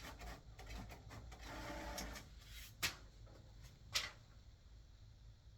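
Printer working: mechanical whirring and rattling for about two seconds, then two sharp clacks about a second apart.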